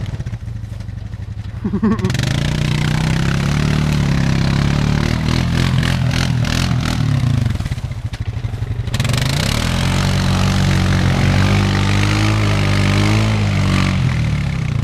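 Honda Foreman ATV's single-cylinder four-stroke engine revving hard under load as it churns through deep mud ruts. Its pitch climbs, falls off about eight seconds in, then climbs again.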